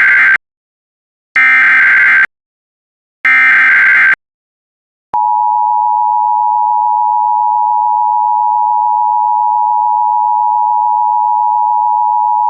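Emergency Alert System SAME header: the end of one burst of screeching digital data, then two more about two seconds apart. After a short gap the two-tone EAS attention signal starts, a loud steady dual tone.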